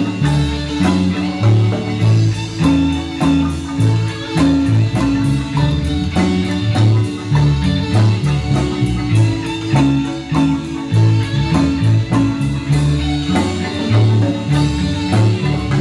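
Dance music with a steady beat and a bouncing bass line.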